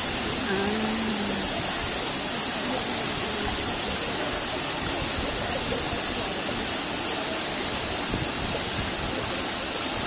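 Waterfall rushing steadily into a rocky pool, a constant hiss of falling water.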